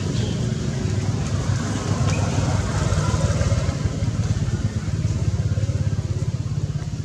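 A small engine running steadily: a low rumble with a rapid, even pulsing.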